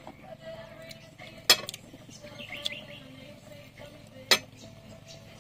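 Two sharp clinks of a metal spoon against a dish, about three seconds apart, while eating.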